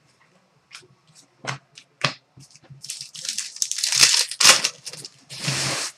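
Trading cards being handled: a few light clicks and snaps, then a stretch of crinkling and rustling, and a short steady sliding hiss about five and a half seconds in.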